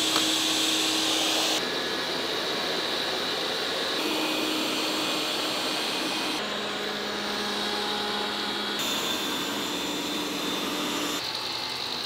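Six robot vacuum cleaners running at three-quarter suction on a hard floor, each heard for about two and a half seconds in turn: a steady fan rush with a high whine. The pitch and tone change abruptly at each switch. The first, the Eufy S1 Pro, is the loudest, followed by the Dreametech X30 Ultra, Roborock S8 MaxV Ultra, Dreametech L10s Ultra, Ecovacs X2 Omni and Narwal Freo X Ultra.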